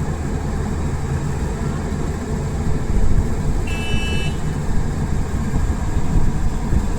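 Backhoe loader engine running steadily with a low rumble. A brief high-pitched tone sounds about four seconds in.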